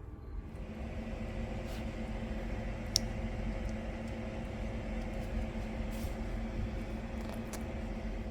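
A small electric tool motor running steadily, starting about half a second in, with a few faint clicks.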